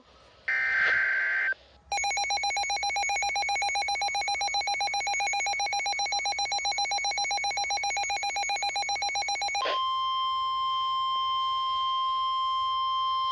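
Emergency Alert System signals ahead of a special marine warning. A short raspy digital header burst comes first, then about seven and a half seconds of rapidly pulsing alert tone. That gives way to a single steady high tone, the weather-radio warning tone.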